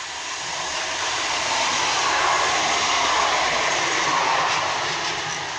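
Bombardier CR4000 light-rail tram passing close by, its wheels and running gear on the rails growing louder, peaking, then fading as it goes past.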